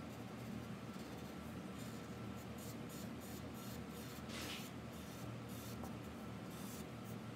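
Felt-tip marker rubbing on paper in quick back-and-forth colouring strokes, faint and scratchy, with one longer stroke about four and a half seconds in, over a steady low hum.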